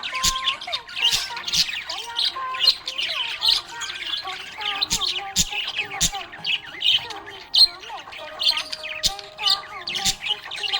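Budgerigars chirping and warbling without pause: a rapid chatter of short chirps, pitch glides and sharp clicks, with one longer held note about three-quarters of the way through.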